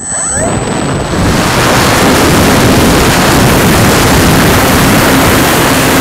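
Electric motor and propeller of a Thermal Rider EP RC glider spooling up to full power, heard from a camera mounted on the airframe. A short rising whine comes first, the sound gets louder again about a second in, and it then holds as a loud, steady rush of propeller and wind noise on the microphone.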